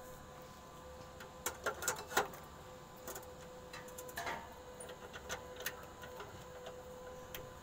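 Scattered light clicks and taps, bunched together about two seconds in and sparser after, over a faint steady hum.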